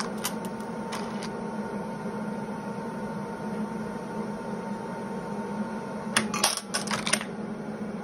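Induction annealer running a cycle on a brass cartridge case: a steady tone holds over a low hum and cuts off about six seconds in as the annealing time runs out. A quick clatter of brass clinks follows as the annealed case drops out and the stepper-driven case feeder loads the next one.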